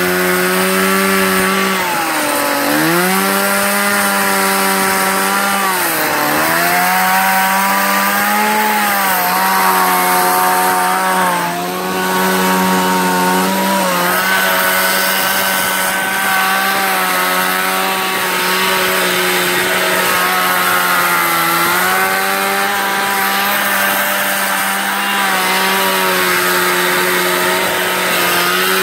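Stihl chainsaw running at high revs while carving into a log, its engine pitch dipping and recovering several times in the first half as the chain bites into the wood, then holding steadily high.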